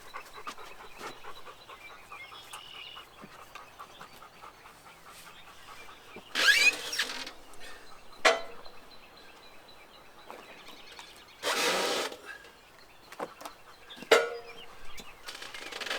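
Work on a large walnut log being turned with a come-along: faint rapid clicking at first, then a scrape that falls in pitch, a short rasp and two sharp knocks, spread out over several seconds.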